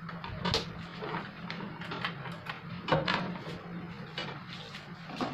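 Sharp CRT TV switched on for a test: a steady low hum with a run of short clicks, roughly one or two a second, fitting the set's relay clicking on and off as it fails to start, the continuous-blinking fault.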